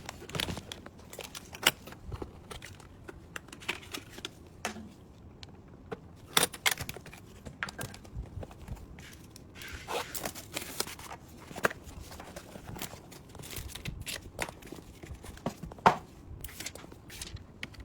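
Irregular clicks, taps and rustling of parts and packaging being handled by hand, with a longer stretch of crinkling about ten seconds in.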